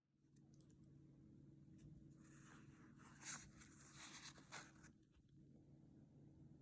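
Near silence: a faint steady hum, with a few soft scratching sounds in the middle.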